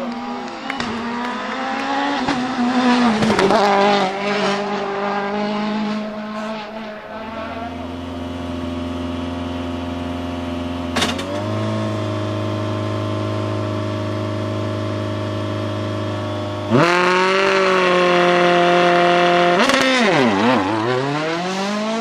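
Citroën DS3 WRC's turbocharged 1.6-litre four-cylinder rally engine: first revving up and down through gear changes on a stage for several seconds. Then, in a new scene, the engine holds a steady speed, steps up about halfway through, and is held at higher, louder revs before the pitch dips and climbs again near the end as the car pulls away.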